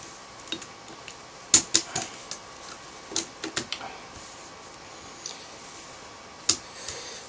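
Scattered sharp clicks and light knocks of an airsoft Version 3 gearbox's metal and plastic parts being handled and fitted together during reassembly. The two loudest clicks come about a second and a half in and near the end, with smaller clusters of clicks between them.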